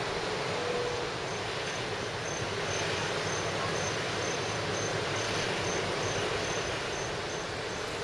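Steady rushing noise of wind and surf, with a faint high chirp repeating about two to three times a second from about a second in.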